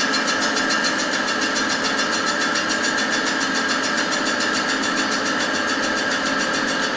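Grinding machine's abrasive wheel grinding down the hard weld build-up on a bus rear wheel hub's wheel seat, turning the seat back to size. The grinding runs steady and even throughout, over the hum of the machine.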